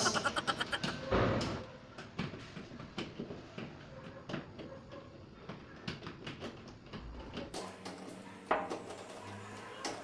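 Screwdriver driving the mounting screws of a round doorknob lockset through the access hole in the knob: faint scraping and light metallic clicks, with a sharper click near the end. It opens on the fading tail of a springy boing sound effect.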